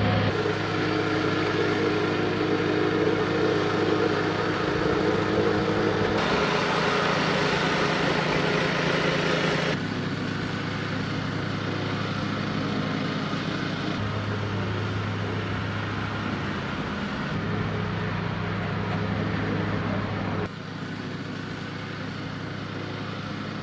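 Motor of construction machinery running steadily, with the sound changing abruptly several times as the shots cut.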